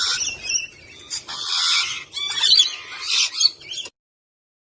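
A parrot squawking and chattering in a run of harsh, high-pitched calls, which cut off suddenly near the end.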